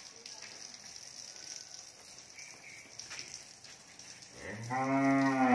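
Faint steady splashing of a cow's urine stream on the concrete floor, then near the end a cow starts a long, loud moo.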